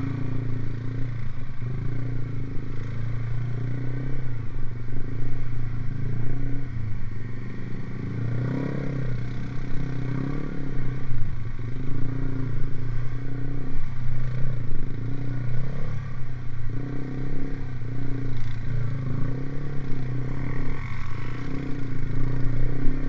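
Motorcycle fitted with an aftermarket racing exhaust, idling steadily with a deep, even note.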